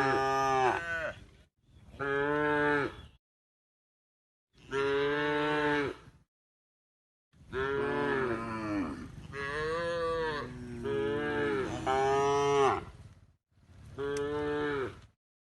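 Cows mooing, a series of about seven long moos that bend in pitch, some running into one another, with gaps of complete silence between them.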